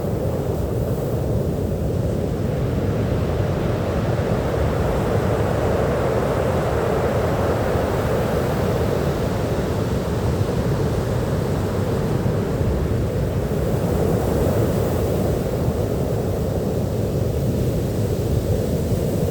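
Ocean surf washing onto a beach: a continuous rush of breaking waves that swells and ebbs slowly, building once over the first part and again later on.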